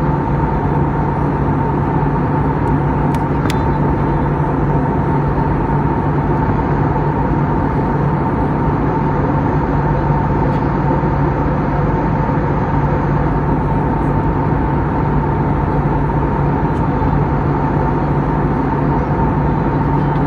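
Airbus A320neo cabin noise in flight, heard from a window seat beside the engine: a steady roar of engine and airflow with a constant low hum and a higher steady whine running through it.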